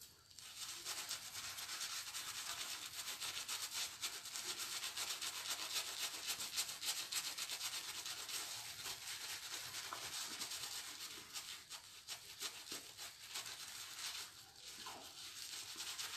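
Shaving brush building lather directly on the face, a steady bristly scrubbing that dips briefly near the end.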